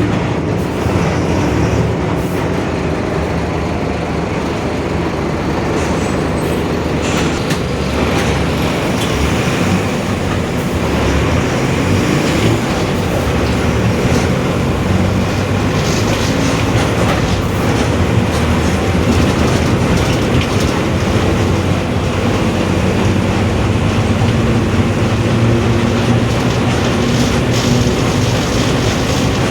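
Mercedes-Benz OF-1721 BlueTec 5 city bus under way: diesel drivetrain and road noise with body rattles, and a low growl from the differential, which is growling.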